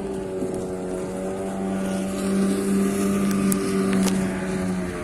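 A motorboat engine runs steadily as an even, pitched hum. It grows louder in the middle and eases off near the end.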